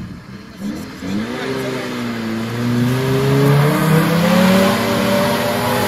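An off-road 4x4's engine revving under load. Its pitch climbs slowly over several seconds after a brief lull about a second in, which an onlooker takes for the engine again being slow to gain power.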